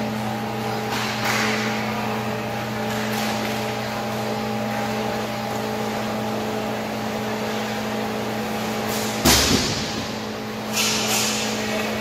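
Inline hockey play with a steady low hum in the arena behind it. Faint scrapes and clatter come from sticks and skate wheels on the rink floor. A sharp, loud bang about nine seconds in is a hit against the boards.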